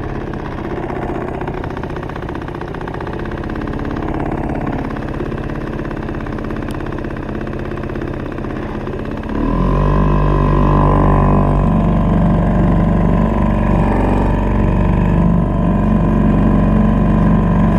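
Outboard motor on a small river boat running steadily under way. About nine and a half seconds in, it is throttled up, its note rising and getting louder before holding at the higher speed.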